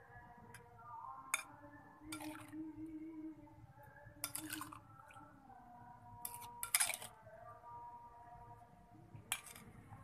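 Light clinks of tableware: a spoon and serving bowl knocking against a china plate about six times, spread out, as a sauce of sliced shallots and chilli is spooned onto fried fish.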